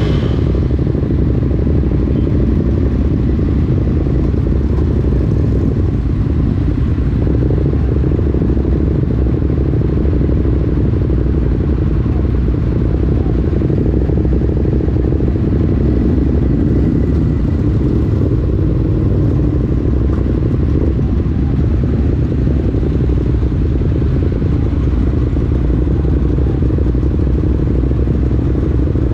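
Ducati Monster motorcycle riding at a steady pace, its L-twin engine giving a continuous low rumble with no marked revving.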